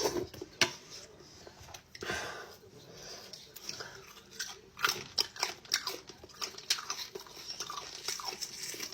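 Crunchy chewing: food being bitten and crunched, with irregular sharp crunches several times a second.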